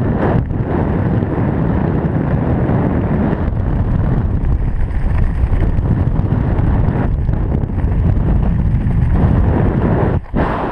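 Loud wind rushing and buffeting over the wrist camera's microphone in tandem skydiving freefall. It dips sharply for a moment near the end.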